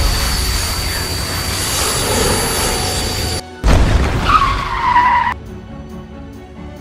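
Sound effects over background music: a loud noisy energy-beam blast with a steady high whine for about three and a half seconds, then, after a brief gap, a car's tyres screeching to a stop for about a second and a half.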